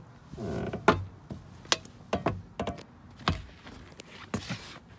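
A run of sharp clicks and knocks with a brief pitched sound about half a second in: handling and bumping noise as a hand-held camera is moved into a pickup truck's cab.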